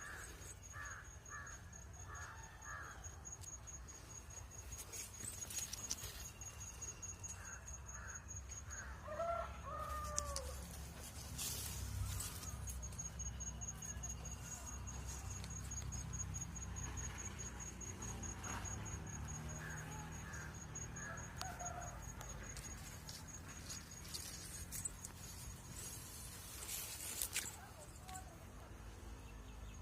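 Chickens clucking in short bursts of quick calls every several seconds, over a steady low rumble.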